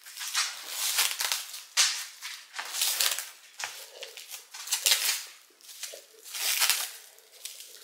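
Clear plastic bag wrapped around a plant's pot crinkling in short, irregular bursts as it is handled.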